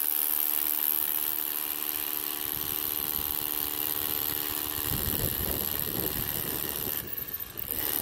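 Cordless SDS hammer drill drilling into a concrete path with a 6 mm bit, pre-drilling the hole for a concrete screw that fixes a tripod star leg down. It starts abruptly and runs with an even, pitched hammering. About five seconds in this gives way to a rougher, lower sound, and the drill pauses briefly near seven seconds in before running again.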